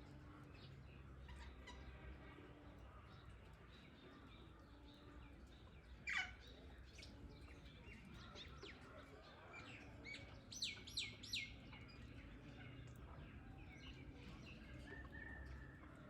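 Ringneck parrot calls: one loud falling call about six seconds in, then three quick sharp calls in a row about ten seconds in, over faint scattered chirping and a low hum.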